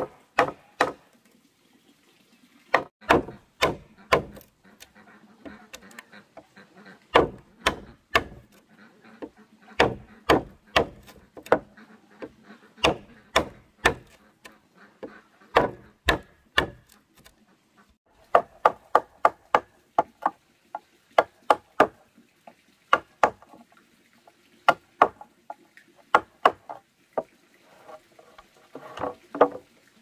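Wood being struck again and again with a hand tool: sharp knocks in short runs of two to four blows, with brief pauses between the runs.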